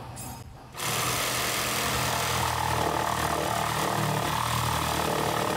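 A jigsaw switches on about a second in and runs steadily, its blade cutting a rough opening through the wooden deck planking for a deck prism.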